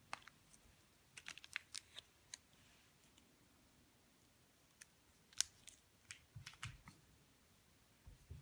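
Faint handling noise: scattered light clicks and taps as a white plastic Apple power adapter and its coiled cable are turned over in cotton-gloved hands. The clicks come in two clusters, with a few soft low thumps among the second.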